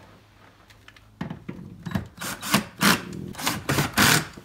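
Cordless drill/driver running in a string of short bursts, driving in the screws that mount a 6.5-inch speaker on its adapter ring in the car door. Faint handling comes before the drill starts a little over a second in.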